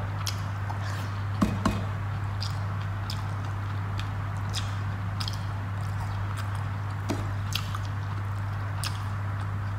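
Fingers mixing rice with fish curry on a plate: soft wet squishing with scattered small clicks, over a steady low hum.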